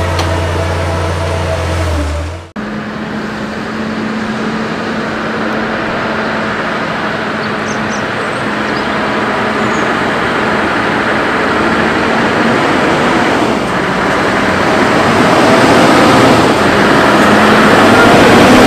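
A heavy diesel engine running with a steady deep hum, cut off abruptly about two and a half seconds in. Then city road traffic, with a Scania T580 V8 heavy-haulage tractor unit pulling a low-loader trailer toward the listener, its engine noise growing steadily louder.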